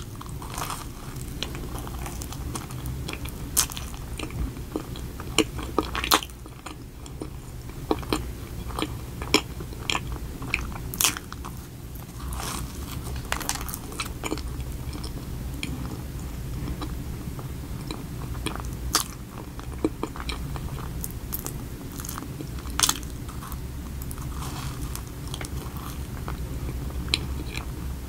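Close-miked eating of a chocolate-glazed Oreo donut: a bite right at the start, then steady chewing with scattered short, sharp clicks and crunches.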